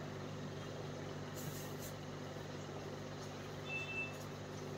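Steady low mechanical hum, with a short high beep about four seconds in.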